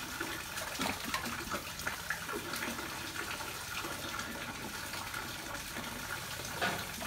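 River water splashing and lapping, with a few small sharp splashes scattered through it.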